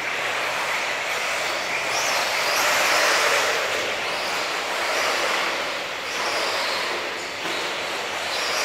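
Electric 1/8-scale off-road RC buggies (Tekno EB48) racing on a dirt track: the high whine of their brushless motors and gears rises and falls again and again as they accelerate and brake, over a steady rushing noise.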